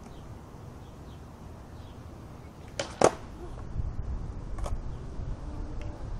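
Skateboard ollie on asphalt: the tail pops and the board lands with a second, louder clack about three seconds in. Then the wheels roll on the asphalt, with another light clack of the board a little later and one near the end.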